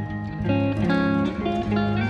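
Background music: plucked guitar notes over a steady bass line.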